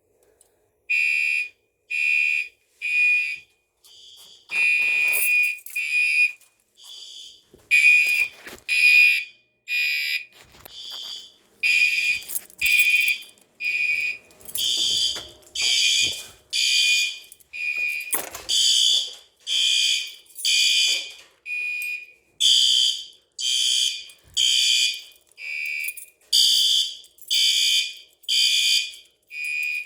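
Fire alarm horns on an MS-5UD fire alarm panel sounding a drill: loud pulsing beeps, roughly one a second, starting about a second in. Horns of two different pitches sound out of step with each other.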